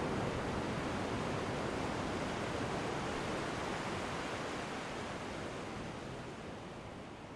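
A steady, even hiss of noise with no tones in it, fading slowly away: the tail end of the background music track.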